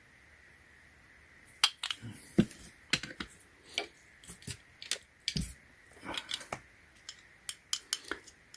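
Screwdriver set being handled: a string of irregular sharp clicks and light knocks of small hard parts and their case, starting about a second and a half in.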